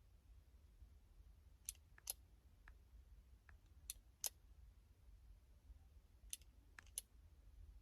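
Near silence over a low steady hum, broken by scattered faint sharp clicks, about nine at uneven intervals.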